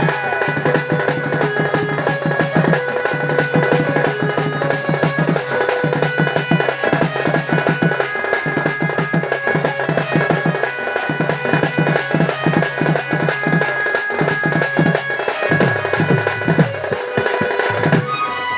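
Instrumental accompaniment for a Sambalpuri danda dance: fast, steady drumming with a sustained melodic line over it. The drumming stops just before the end.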